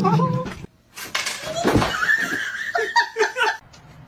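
A person laughing, in a run of quick repeated bursts about three seconds in.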